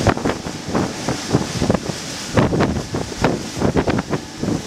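Gusty wind buffeting the microphone on the deck of a moving boat, over a steady hiss of water rushing past.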